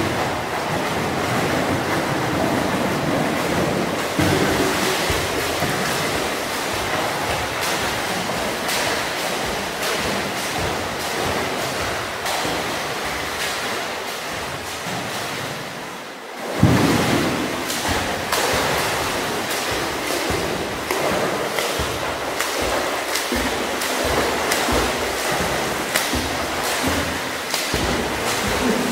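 Swimmer splashing through pool water, arms and kicks churning it into a steady rush of splashes. It drops off briefly a little past halfway and comes back with a sharp splash.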